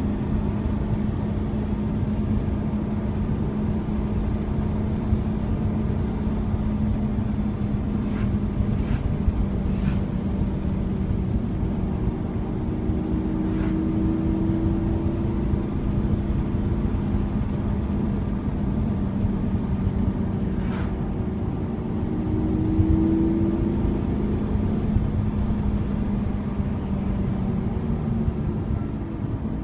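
Lamborghini Aventador's V12 engine heard from inside the cabin, cruising steadily under a dense low drone of engine and road noise. The engine note rises slightly twice, about halfway through and again about three quarters in.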